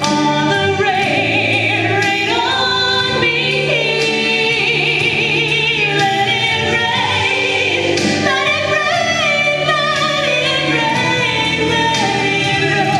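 A woman singing a slow Christian worship song over instrumental accompaniment, with long held notes that waver in vibrato.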